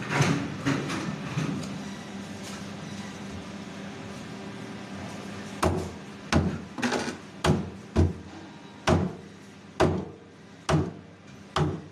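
Large knife chopping a black snapper crosswise into steaks on a wooden chopping block: about ten sharp knocks, one every half second to a second, from about halfway in. There are a few louder knocks in the first second and a half.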